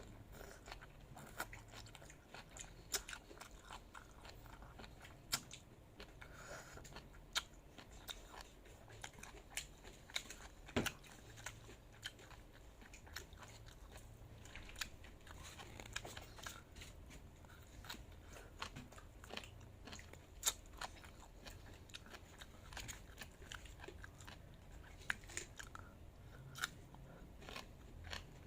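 A person chewing and biting crunchy food close to the microphone, with many irregular sharp crunches.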